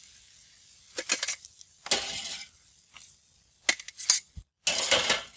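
Metal tongs clinking against the grill grate and a metal serving tray as grilled pork ribs are lifted off, with a few sharp clicks and two short scraping, rustling noises.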